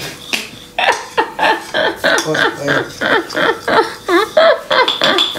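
People's voices talking and laughing in quick short bursts.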